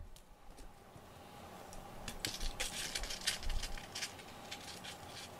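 A cat mouthing a plush toy on a cloth cushion: faint, irregular crackly clicks and rustling, starting about two seconds in.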